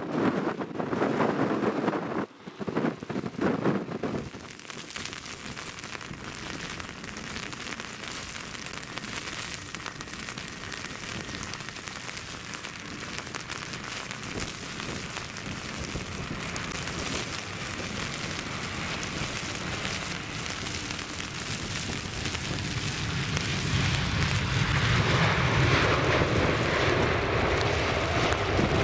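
Gusty wind buffeting the microphone for the first few seconds, then a steady hiss of rain and spray. From about three-quarters of the way through, the jet engines of a Boeing 747-400F freighter rolling out on the soaked runway rise to a loud, steady rumble mixed with the hiss of spray thrown up by its wheels.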